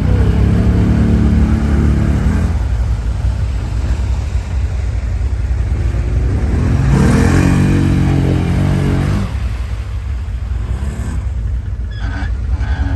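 Quad bike (ATV) engine running under throttle, revving up twice: once in the first couple of seconds and again from about six and a half to nine seconds in, dropping back to a lower running note in between.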